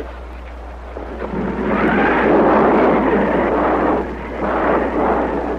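Thunder on an old film soundtrack: a long noisy roll that swells about a second in, dips briefly, then rises again and cuts off near the end, over a steady low hum.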